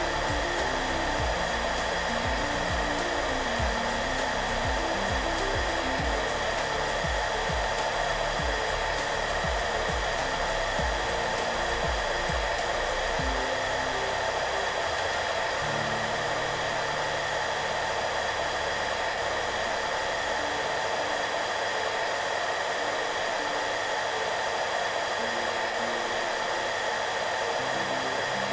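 Hair dryer running steadily, an even whooshing hum with a constant motor whine. Soft background music plays underneath, and its low pulsing beat drops out about halfway through.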